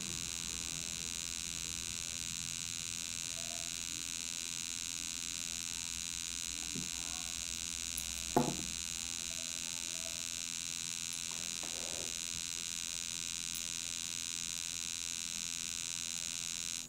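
Steady electrical buzz with a high, hissing whine, like a small motor or appliance running, that stops suddenly near the end. There is a single soft knock about eight seconds in.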